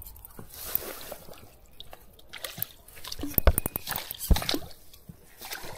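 Hooked bream splashing and thrashing at the water's surface while being played on the line, with a few sharp knocks about halfway through.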